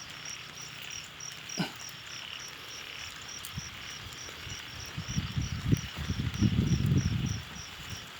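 An insect chirping steadily in short high pulses, about four a second. From about five seconds in, louder low rustling and knocks, such as handling or movement close to the microphone, cover it for a couple of seconds.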